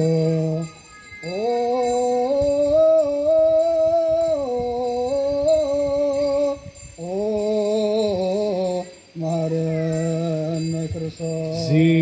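A man's voice chanting liturgy in long, held phrases that step up and down in pitch, with short breaths between phrases.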